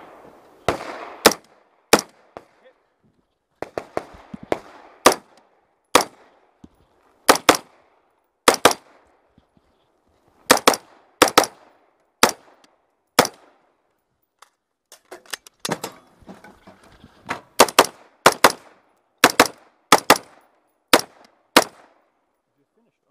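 Rapid semi-automatic fire from an AR-15-style rifle close to the microphone: about two dozen sharp shots, many in quick pairs, broken by short pauses between groups.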